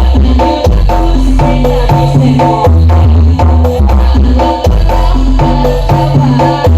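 Loud dance music through a huge 'sound horeg' stacked speaker system during a sound check, with heavy sustained bass notes and a busy percussive beat over a repeating melodic riff.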